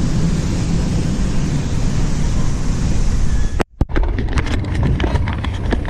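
Wind buffeting the camera microphone in a steady low rumble, then a brief dropout a little past halfway. After it come scattered clicks and knocks as the camera is handled by the bike's handlebars.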